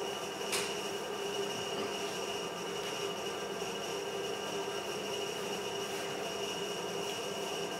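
Steady machine hum with a high whine held on a few fixed pitches over a hiss, with a single short click about half a second in.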